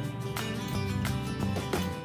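Background music with strummed guitar and a steady beat.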